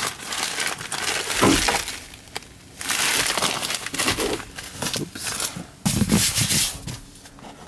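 Clear plastic protective floor-mat cover crinkling as it is handled, in several rustling bursts.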